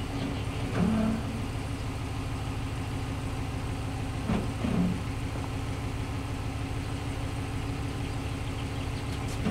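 Ford F-250 pickup's engine idling with a steady low hum as the truck creeps slowly backward.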